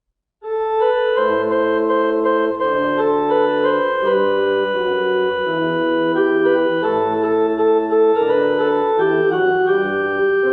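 Casio electronic keyboard playing sustained chords on a church-organ tone, starting about half a second in, with the chords changing every second or so.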